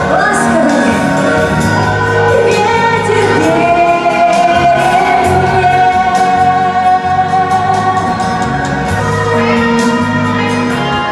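A choir singing a song over instrumental backing with a steady beat. One long note is held through the middle.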